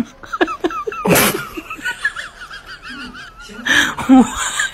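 Laughter, high and wavering, with a short loud noisy burst about a second in and another loud burst of laughter near the end.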